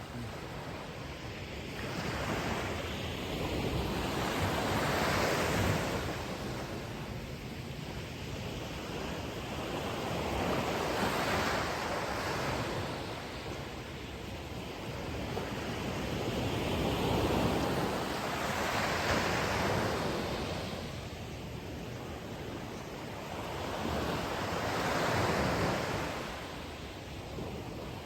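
Ocean surf breaking on a shore, the roar of each wave swelling and falling back about every six seconds.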